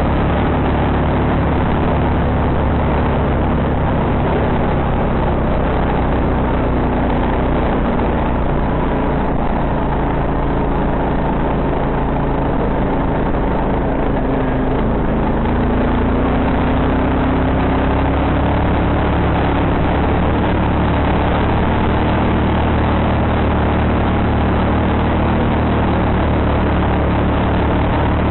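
Quad bike (ATV) engine running steadily while riding over mud and snow, its pitch rising about halfway through.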